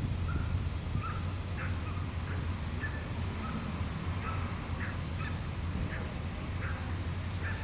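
Birds calling in short, scattered chirps a few times a second over a steady low hum, most likely the idling engine of the tow truck hooked to the car.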